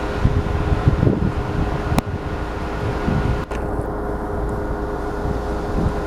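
Steady mechanical hum with a few constant tones, with low wind buffeting on the microphone now and then and a single sharp click about two seconds in.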